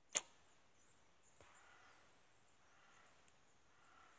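Mission Hype DT compound bow being shot: one sharp crack of the string and limbs at release right at the start, with a brief ring-out, followed by faint soft rustling.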